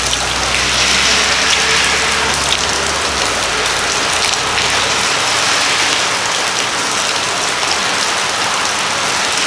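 Steady rain falling on a roof and the ground around it, an even hiss throughout, with a low hum underneath that stops about five seconds in.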